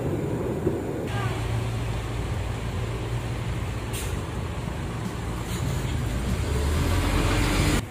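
Diesel bus engine running close by, a steady low rumble that grows louder toward the end, with a short air hiss about four seconds in. The sound cuts off abruptly near the end.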